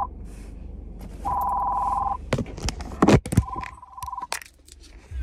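Car's dashboard warning chime beeping in two-note bursts of about a second, twice, then more faintly a third time. In between come knocks and rustles of handling, the loudest about three seconds in.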